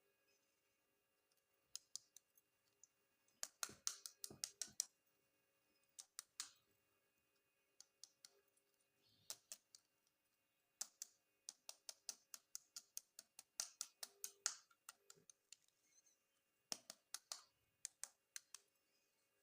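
Hard plastic toy pieces clicking and tapping as they are handled, in irregular clusters of sharp clicks with quiet gaps between.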